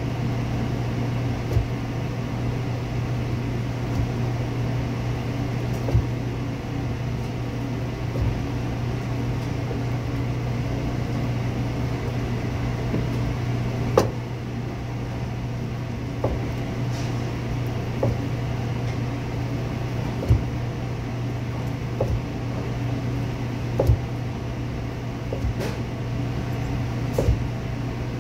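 A chef's knife knocking on a cutting board roughly every two seconds as it cuts through slices of cooked pork loin, over a steady low mechanical hum of kitchen equipment.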